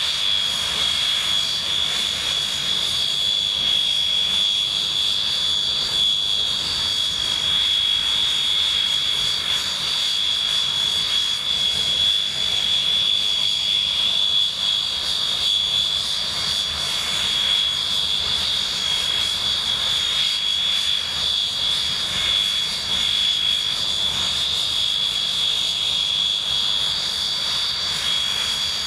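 English Electric Canberra's Rolls-Royce Avon turbojets running at idle on the ground, a steady high-pitched whine over a rushing hiss.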